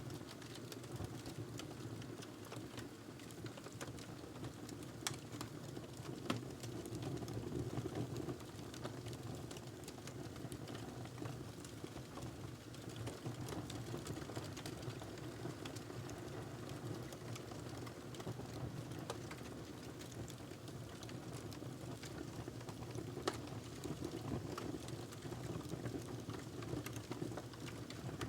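Wood fire crackling in a fireplace: a steady low rumble of burning with scattered small crackles and a few louder pops.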